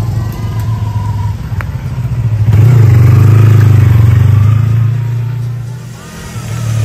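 Motorcycle engines on a narrow lane: a sport motorcycle rides past close by, loudest a few seconds in and then fading, and a second motorcycle comes up near the end.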